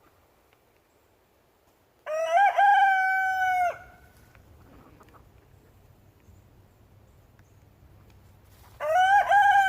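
A rooster crowing twice, each crow rising to a long held note lasting about a second and a half.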